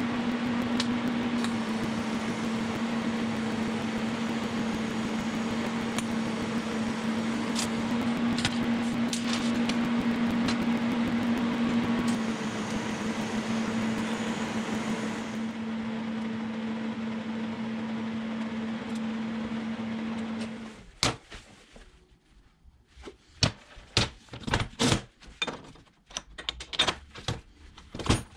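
TIG welding arc buzzing steadily with a constant hum and hiss, stopping suddenly about 21 seconds in. After that come light metallic clinks and knocks of steel parts and a coilover shock being handled on a steel welding table.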